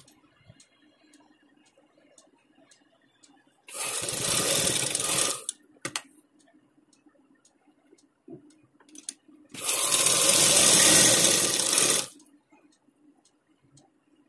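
Sewing machine stitching fabric in two short runs, about 4 and 10 seconds in, the second run the longer. Faint light ticks come in between.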